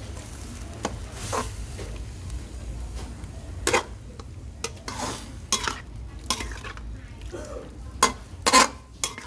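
Metal wok ladle scraping and clanking against a wok as beef and vegetables are stir-fried, over a light sizzle. The strokes come irregularly, with the loudest pair of scrapes near the end.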